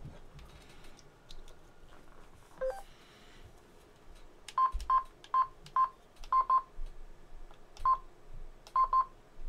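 Vertex Standard VX-3200 mobile radio beeping through its speaker: a short rising chirp, then about nine short beeps of one pitch as its front-panel keys are pressed. The key beeps show the radio's audio output working again after the repair of its audio circuit.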